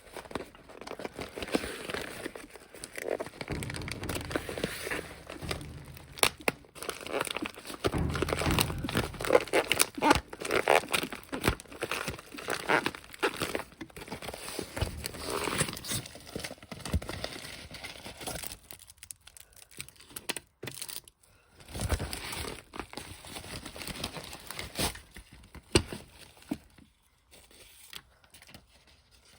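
Packaging being handled and opened by hand: irregular crinkling and tearing with scattered sharp clicks, stopping briefly a few times.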